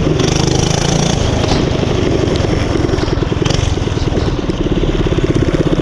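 Small motorbike engine running as it is ridden, with a few sharp backfire pops.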